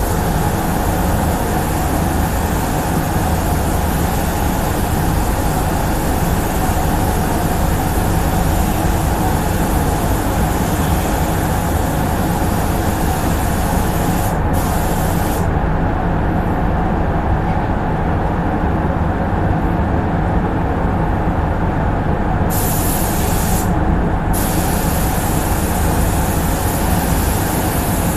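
Steady running of a paint spray booth's ventilation, with a higher hiss of compressed air from a spray gun on top. The hiss drops out for about seven seconds past the middle and again briefly just after, then returns.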